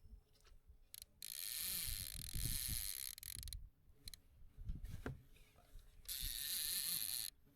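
A fishing reel being cranked in two runs of whirring, the first about two and a half seconds long and the second about a second, with soft knocks between them.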